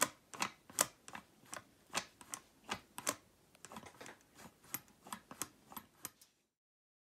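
Homemade rebar matchlock lock on a steel lock plate, clicking and clacking as its trigger lever is worked over and over. There are about two to three sharp metal clicks a second, and they stop suddenly a little after six seconds.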